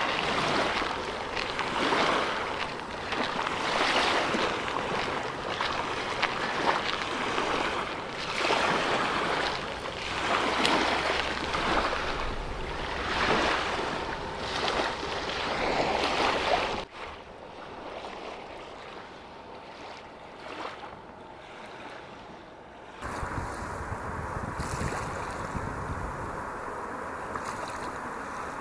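Wind blowing across the microphone together with small waves lapping on the shore, swelling and easing every second or two. About seventeen seconds in it drops off suddenly to a quieter hush, and a steadier noise with a low rumble comes back in a few seconds later.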